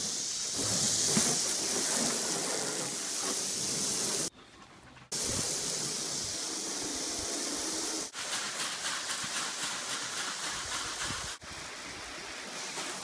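Water spraying from a hose onto a car's hood and windshield, a steady hiss of spray spattering on the metal and glass. It cuts off abruptly about four seconds in and starts again a second later, with further sharp breaks later on.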